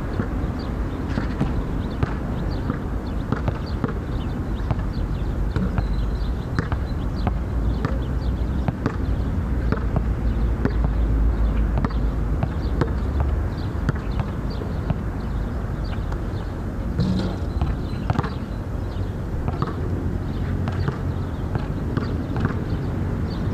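Basketball bouncing on a hard outdoor court, dribbled in irregular runs of sharp bounces, over a steady low rumble.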